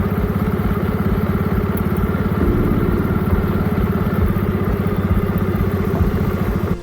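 Motorcycle engine running steadily, with a fast, even pulse of firing strokes.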